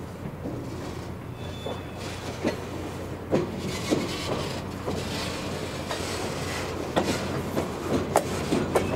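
Freight boxcars rolling slowly along yard track: a steady low rumble, with wheels clacking and knocking at irregular intervals that grow louder and more frequent from about three seconds in.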